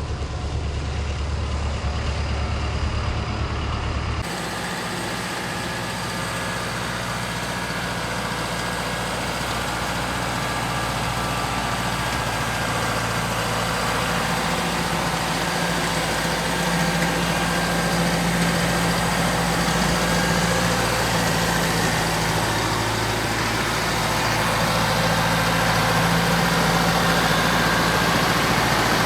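A vehicle engine running steadily, with an abrupt change in its sound about four seconds in and a slow rise in loudness after that.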